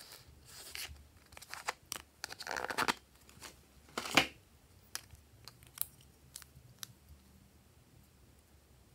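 Cardboard lipstick boxes and cases being handled: rustling and scraping for the first three seconds, a sharp click about four seconds in, then several lighter clicks as a lipstick case is opened.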